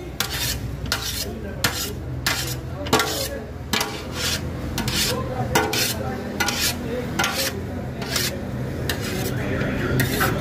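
Cooked beef pulao rice being scraped and stirred against a large metal pot and its metal lid, in quick uneven scraping strokes about two or three a second, over a steady low hum.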